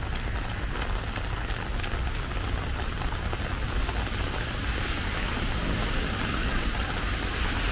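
Steady rain hiss, with drops ticking sharply on an umbrella overhead in the first couple of seconds; the hiss grows a little louder from about halfway.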